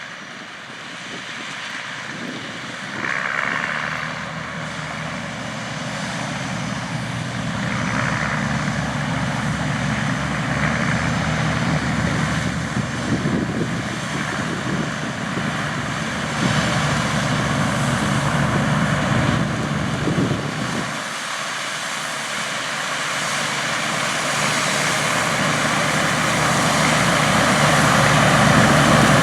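Steiger Puma 1000 tractor's 8.3-litre diesel engine running steadily at work, a continuous drone that grows louder toward the end.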